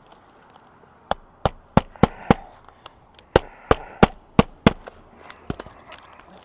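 Roofing hatchet hammering roofing nails into asphalt shingles laid over a second, older shingle layer. Two runs of about five sharp strikes, about three a second, then two lighter taps near the end.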